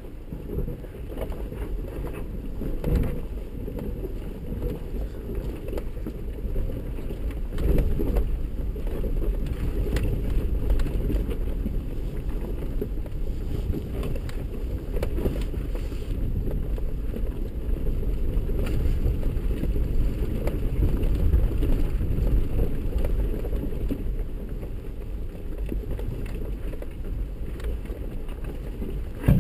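Steady low rumble inside the cab of an off-road 4x4 rolling down a rocky trail, with a few short knocks and jolts as it goes over rocks and a sharp knock at the very end.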